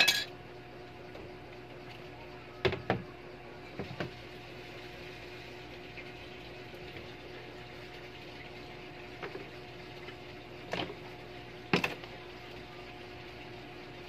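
A washing-machine gear case and its parts being handled by hand: a scattering of short, sharp clicks and knocks of hard plastic and metal, the loudest right at the start and about two seconds before the end, over a steady low hum.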